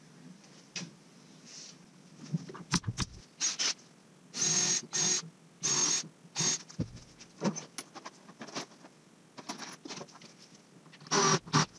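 Cordless drill driving screws into a wooden shelf cleat, running in several short bursts of about half a second each, after a few sharp clicks.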